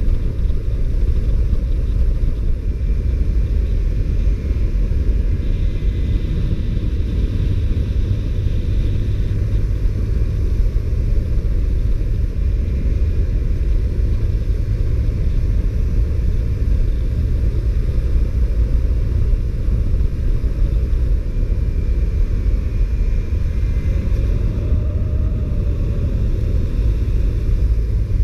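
Honda CBR125R with its stock exhaust running steadily under way, its single-cylinder engine heard through a heavy, steady low rumble of riding wind.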